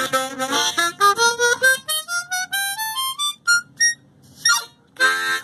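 Diatonic harmonica, a Hohner MS-series fitted with a freshly installed custom comb, played as a test to check that nothing blocks the reed slots. A few chords, then a run of single notes climbing up the scale, a brief quieter stretch with a few short notes, and chords again near the end.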